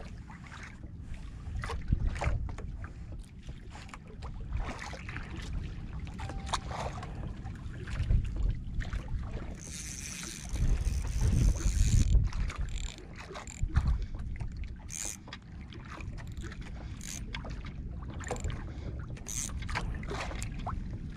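Wind on the microphone and water noise aboard a small fishing boat at sea, a steady low rumble with scattered knocks and clicks from handling gear. There is a short burst of hiss about ten seconds in.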